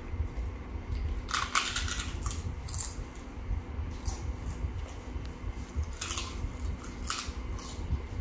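Crisp fuchka (panipuri) shells cracking and crunching in about five short crackly bursts, the longest about a second in, as the hollow puris are broken open and eaten.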